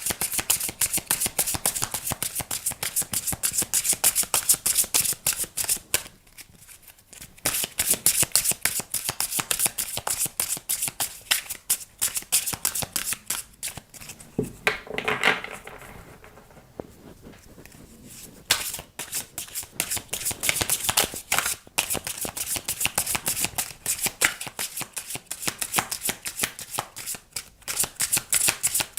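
A deck of tarot cards being shuffled by hand: runs of rapid papery clicking, broken by two short pauses.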